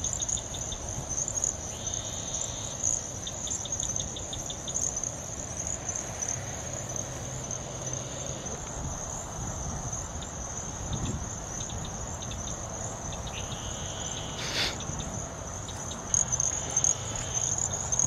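Evening chorus of crickets and other insects: a steady high-pitched trill, with shorter runs of rapid chirping that come and go beneath it. A single sharp click sounds near the end.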